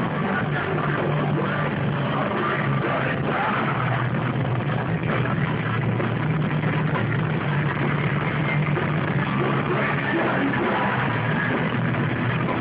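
Heavy metal band playing live at full volume: a dense, unbroken wall of distorted guitars, bass and drums.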